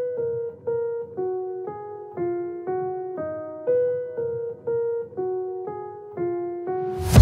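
Background music: a piano-like keyboard plays a slow melody of single notes, about two a second, each ringing and fading. At the very end a rising swell leads into a loud electronic beat with drums.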